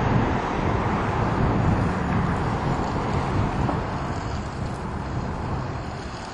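Steady outdoor rumble and hiss with no distinct events, heaviest in the low range, easing slightly toward the end.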